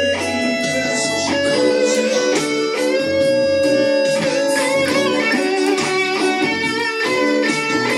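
Telecaster-style electric guitar played, a melodic line of changing, sustained notes, one of them held for about a second near the middle.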